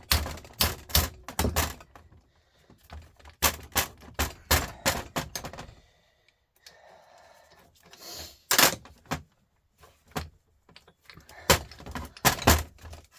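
Irregular clusters of sharp metallic knocks and taps: metal tools striking the casing and parts of a Volvo truck starter motor as it is dismantled, with one especially loud strike about two-thirds of the way in.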